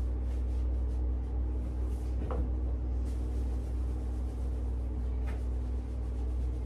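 A steady low hum fills a small tiled bathroom, with a few faint soft rubbing strokes of a towel drying wet hair.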